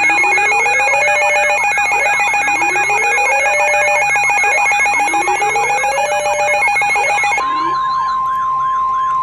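A dense layered mix of electronic emergency alert alarms: several steady tones, a repeating rising whoop and many fast wailing sirens sounding together. About seven and a half seconds in, most of it drops away, leaving one steady alert tone with a single wailing siren under it.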